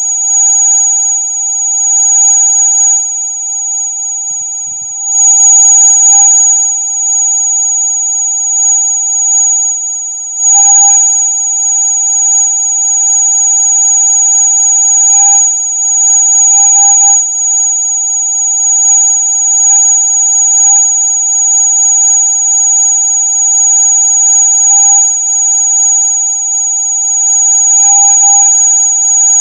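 Electronic rat-repellent sound: a loud, steady mix of several pure tones, a shrill high whine on top with a lower tone beneath, like an alarm that never stops. The tones sit well within human hearing rather than being ultrasonic, with slight swells in level and a few brief crackles.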